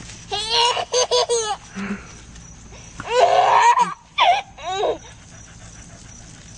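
Toddler laughing in three bouts of high giggles and belly laughs, with short quiet gaps between.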